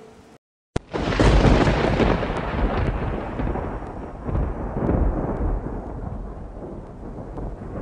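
Thunder sound effect for a lightning strike: after a moment of silence, a sharp crack just under a second in, then a long rolling rumble that slowly fades.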